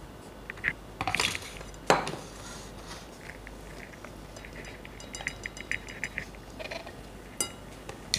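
Clinks and knocks of a food-chopper bowl against a ceramic bowl as shredded chicken is tipped and tapped out: a sharp knock about two seconds in, a run of light quick taps around five to six seconds in, and another knock near the end.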